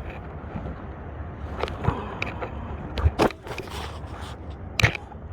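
A kayak paddle working over a steady wash of wind and water, with a few sharp knocks and clatters: one about two seconds in, two close together after three seconds, and one near the end.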